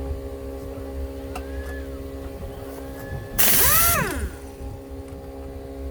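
A pneumatic tool, such as an air impact wrench, is triggered once about halfway through. It gives a loud rush of air under a second long, with a whine that rises and then falls. A steady electrical hum runs underneath.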